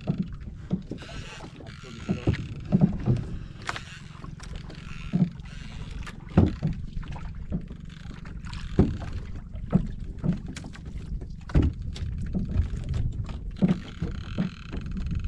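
Water slapping and knocking against the hull of a small wooden outrigger boat, with irregular sharp knocks over a steady low wind rumble on the microphone.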